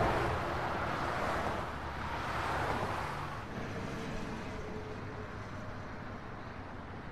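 Passing cars' tyres hissing on a wet, slushy street: a swell of rushing noise at the start and another about two to three seconds in, each fading away.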